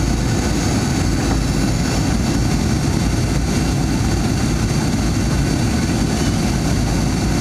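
Steady cabin noise of a Boeing 737-900ER on approach, heard inside the cabin over the wing: the CFM56-7 turbofans and rushing airflow make an even, low rumble with a faint steady hum above it.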